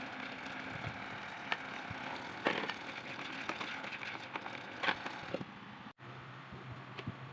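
Cooking sounds: scattered sharp clicks and knocks, like utensils against a pan, over a steady background hiss. The sound cuts out abruptly about six seconds in, then resumes with a low steady hum.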